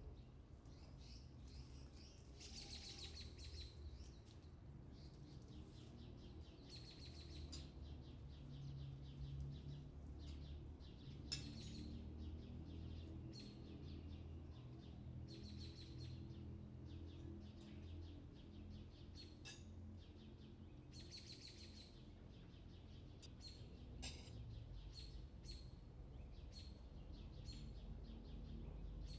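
Small birds chirping in repeated short bursts of high calls over a faint low rumble, with a single sharp click about eleven seconds in.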